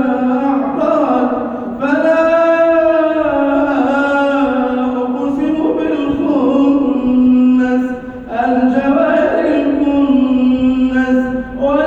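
A single male voice reciting the Quran in melodic tajwid style, with long drawn-out notes that bend slowly in pitch. There are short pauses for breath about two seconds and eight seconds in, and another just before the end.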